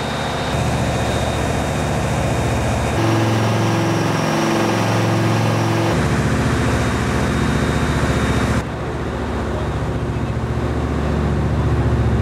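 Boat engine running steadily under way, a loud even hum that shifts abruptly in level and pitch a few times.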